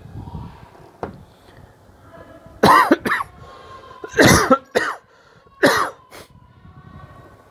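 A man coughing three times, each a harsh double cough, from about two and a half to six seconds in.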